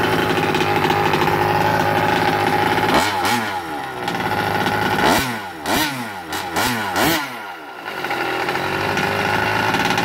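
An RC car's small engine idling on the stand, blipped up and down in pitch about three seconds in and several more times a couple of seconds later, then settling back to a steady idle. It is being run through heat cycles to break in the new engine.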